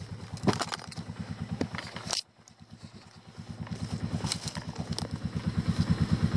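ATV engine running at low revs with a steady, even pulsing, with scattered knocks and clatter over rough trail. The engine drops out briefly about two seconds in, then grows steadily louder toward the end.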